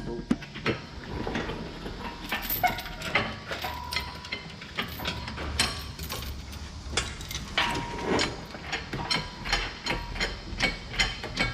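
Metal clicking and clanking from hand tools at work on the truck's engine mounts, with stretches of quick, ratchet-like ticking.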